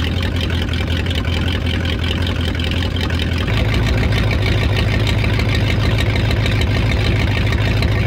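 Jeep Wagoneer engine running in gear, heard close up from underneath at the Quadra-Trac transfer case. Its low note changes about three and a half seconds in. It is turning the tail shaft gears, which spin normally: the chain is fine and the fault lies in the low-range shift mechanism.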